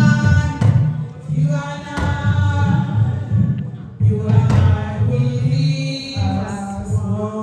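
Music with singing voices and a heavy bass line.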